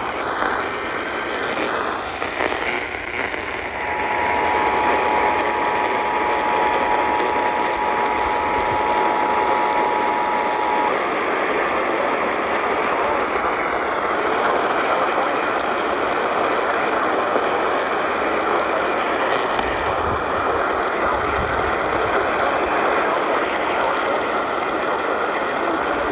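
Emergency Alert System two-tone attention signal, held steady for about seven seconds from about four seconds in, over a constant loud hiss of radio static.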